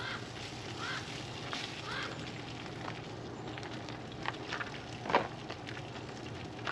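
Sausages sizzling in a pan on a camp stove, with three short bird calls in the first two seconds and a sharp click about five seconds in.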